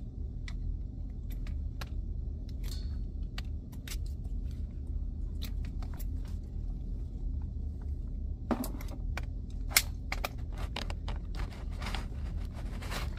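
Small clicks and rattles of hand tools and electrical wire being handled as the wire is stripped and worked onto a well pump's pressure switch. The clicks are sparse at first and come thick and fast in the last few seconds, over a steady low hum.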